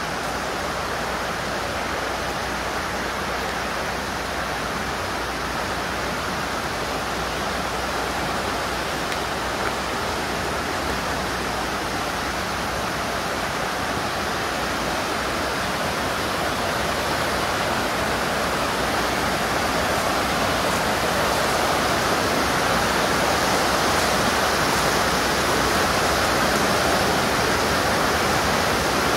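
River rapids: a steady rush of white water, growing gradually louder through the second half.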